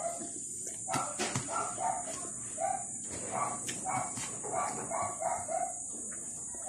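Chickens calling in a series of short, repeated clucks, over a steady high hiss.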